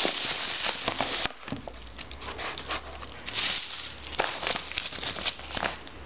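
Plastic shipping bag and its paper wrapping crinkling and rustling as they are handled and opened. A loud burst of rustling comes in the first second or so, then shorter rustles about once a second.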